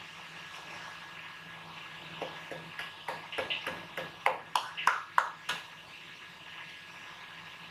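A quick run of a dozen or so sharp, ringing metallic taps, starting about two seconds in and stopping about three and a half seconds later, loudest just after the middle. A steady background hum runs underneath.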